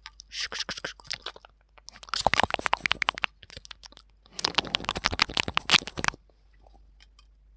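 Close-miked ASMR crunching and crackling in three bursts of dense clicks. The two later bursts are the loudest, and the sound stops about six seconds in.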